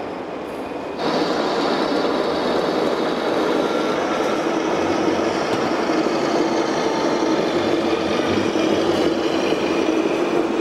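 Radio-controlled model construction machinery running: a steady whine of small electric motors, gearing and hydraulic pumps that steps up in level about a second in.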